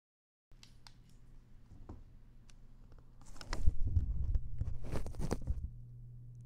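Rustling and rubbing of a Logitech G633 headset's earcups being fitted over the ears of a 3Dio Free Space binaural microphone, picked up directly by the microphone. It is loudest between about three and six seconds in, with faint clicks before it, over a steady low hum that starts about half a second in.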